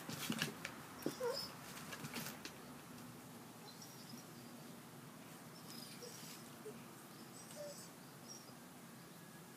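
A few close scuffs and sharp clicks of movement over the first two seconds or so, then quiet outdoor background with a few faint, short high chirps.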